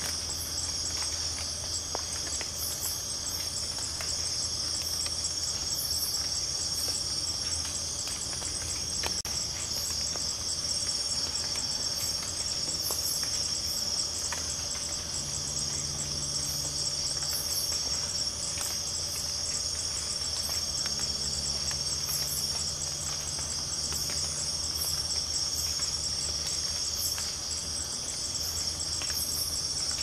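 Night jungle insect chorus: a steady high-pitched trill of many insects, with short higher chirps every second or two. A low steady hum runs underneath.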